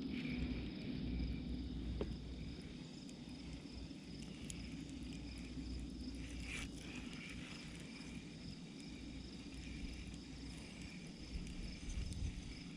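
Insects chirring steadily in the riverside vegetation, a thin high trill that holds on without a break, with a few faint clicks.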